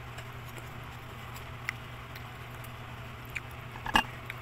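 Faint mouth clicks of someone chewing green mango over a steady low hum, with one sharp click about four seconds in as a mango slice is dipped into bagoong on a plate.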